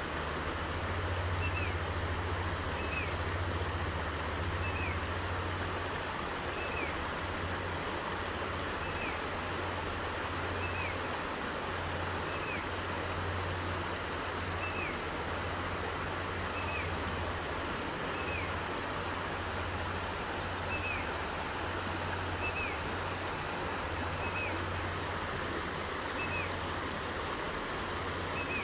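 Small forest headwater stream flowing with a steady rushing sound. A short, faint falling chirp repeats about every two seconds over it, with a steady low hum underneath.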